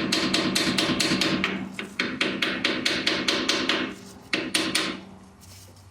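Small hammer tapping rapidly on a Suzuki Samurai front steering knuckle to drive out a kingpin: quick metallic strikes several a second, in two long runs with a short break about two seconds in, then a few more strikes near the end.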